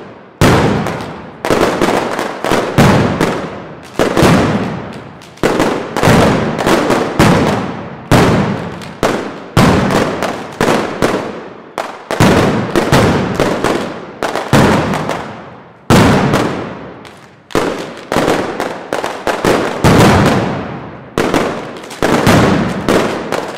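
Mascletà: strings of masclets (heavy firecrackers) going off in rapid, uneven volleys of several loud bangs a second, each bang trailing off in echo down the street.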